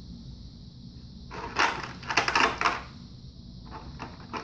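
Plastic toy pieces and packaging being handled: a burst of crackly rattling and crinkling lasting about a second and a half, then a couple of light clicks near the end.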